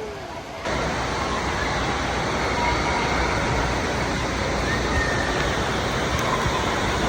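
Steady rushing din of an indoor water park, with faint distant voices in it. It cuts in suddenly just under a second in.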